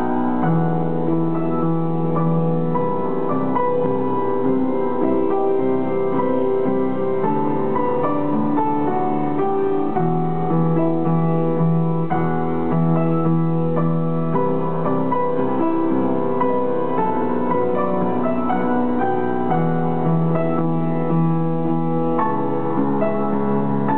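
Upright piano played by hand: a slow, flowing melody over sustained chords, with the low notes changing every couple of seconds at an even loudness.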